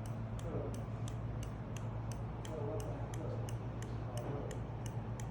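Hazard-light flasher relay of a golf cart turn signal switch kit clicking in a steady rhythm, a few clicks a second, as the emergency flashers blink. A steady low hum runs underneath.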